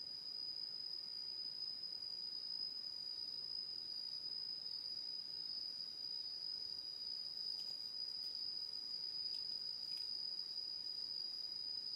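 Steady, unbroken high-pitched drone of insects in the forest, with a few faint clicks in the second half.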